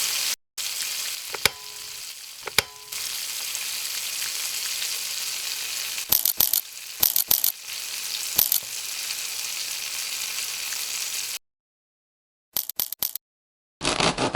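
Mughlai paratha shallow-frying in oil in a pan, with a steady sizzle. Sharp clicks and clatters of a utensil against the pan come in clusters, and the sound stops abruptly at several edit cuts.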